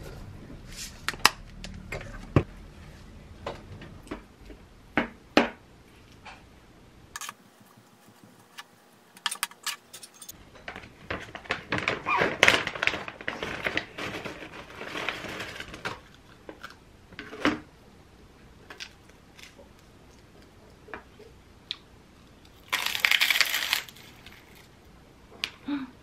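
Sharp clicks and clinks of utensils and kitchenware, then a plastic snack pouch crinkling and rustling as a seasoned-seaweed chip (gim-bugak) is taken out. A short, loud rustle comes near the end.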